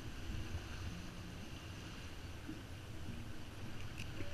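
Steady wind noise on the microphone over water rushing and splashing along the hull of a sailboat under sail in a strong breeze.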